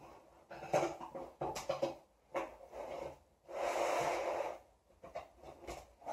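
Scissors slicing through packing tape on a cardboard shipping box: short scrapes and taps of cardboard, then one long scraping cut of about a second a little past the middle, followed by more short scrapes.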